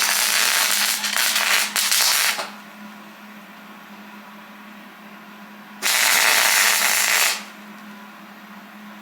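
Hobart arc welder crackling as it welds up pinholes in a Dana 45 axle housing: one bead ends about two and a half seconds in, and a second short bead of about a second and a half follows near six seconds. A steady low hum fills the pauses between them.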